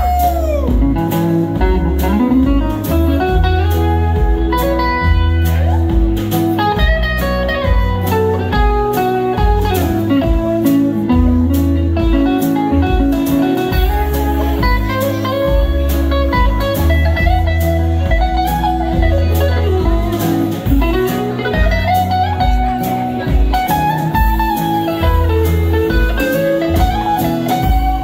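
Live band playing an instrumental break: a lead guitar plays bending, sliding notes over a steady drum and bass groove.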